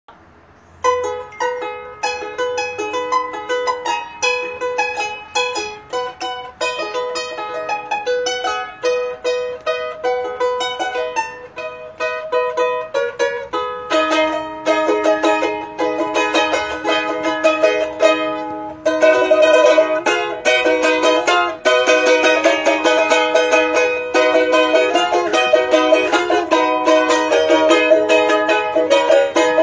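Solo charango: a quick picked melody of single notes, growing into fuller, denser strummed chords about halfway through.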